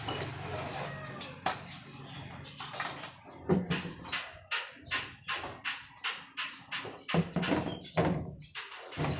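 A rapid series of sharp, short knocks, about two to three a second, starting a little over three seconds in over a low hum.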